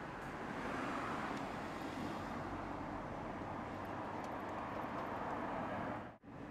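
Tosaden street tram running: a steady rumble and hum of wheels on rail and traction motor. The sound cuts out briefly near the end.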